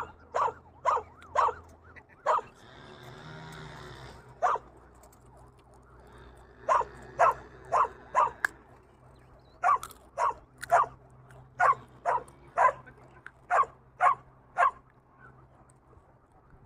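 Short, sharp animal calls repeated in runs of several, about two a second, with pauses between the runs. A brief hiss or rustle comes in about three seconds in.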